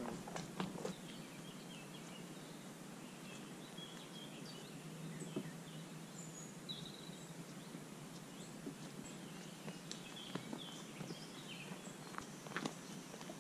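Small birds chirping and whistling in quiet woodland, over a faint steady background hush. Footsteps crunch on a gravel path in the first second and again near the end as a walker passes close by.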